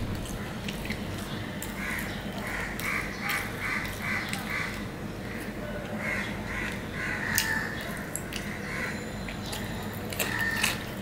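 A bird calling in quick runs of short harsh calls, about four a second, several times over, with soft clicks of fingers working rice on a steel plate underneath.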